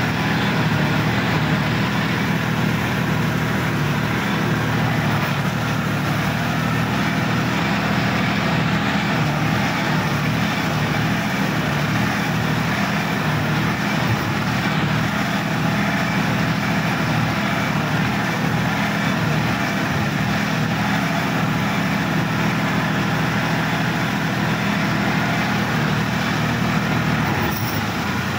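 Sonalika DI-50 RX tractor's diesel engine running steadily as the tractor drives through deep mud, heard from the driver's seat.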